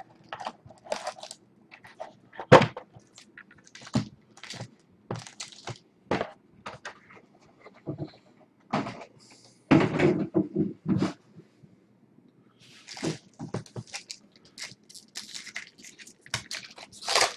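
Foil-wrapped trading card packs being handled: a run of crinkles, rustles and taps as the packs come out of the box and are stacked, with a sharp knock about two and a half seconds in. Near the end a pack is torn open.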